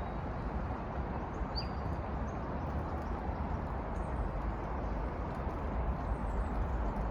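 Steady outdoor background noise with a low rumble, and one short, faint bird chirp about a second and a half in.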